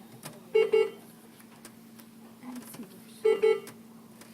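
Hospital bedside equipment alarm beeping: a pitched double beep that repeats, sounding twice, about 2.7 seconds apart, over a steady low electrical hum.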